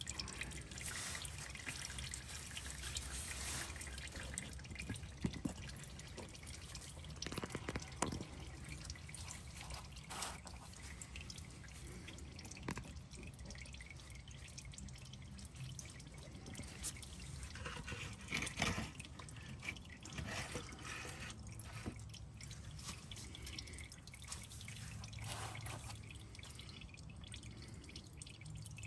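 Motor oil dripping and trickling from a partly loosened spin-on oil filter into a drain pan, in irregular drips with a few louder ones.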